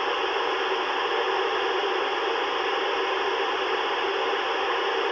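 Steady hiss of FM radio static from a Yaesu FT-991A transceiver's speaker, tuned to the International Space Station's amateur radio downlink near 437.8 MHz.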